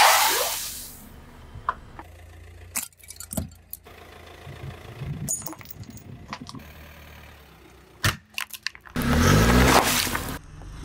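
Car tyre rolling over and crushing objects on asphalt in several short takes. It opens with a loud crunch whose hiss fades over about a second. Scattered small snaps and crackles follow over a low rumble. Near the end a louder rush of noise comes as the tyre squashes water-gel beads.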